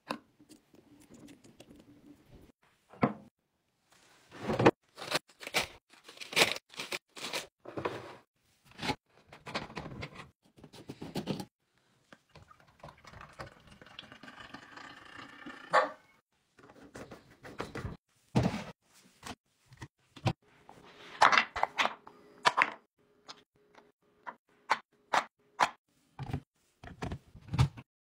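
A run of sharp knocks, clicks and clinks from glass bottles, pump tops and caps being fitted and set down, with liquid pouring into a glass carafe for a few seconds in the middle.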